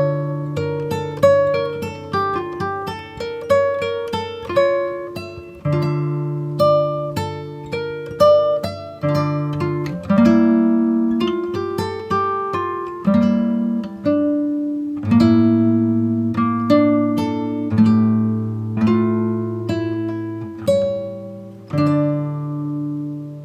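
Background music: a plucked acoustic guitar playing a melody over held bass notes.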